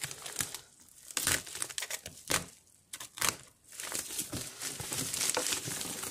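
Plastic shipping bag being torn open and crinkled by hand, in irregular crackling bursts with short pauses, the crackling steadier over the last two seconds.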